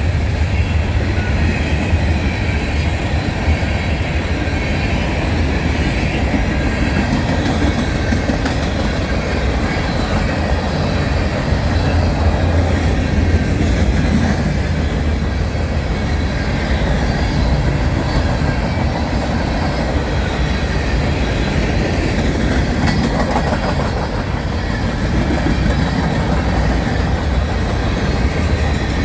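Loaded grain train's covered hopper cars rolling past, a steady loud rumble of steel wheels on the rails with clickety-clack over the rail joints.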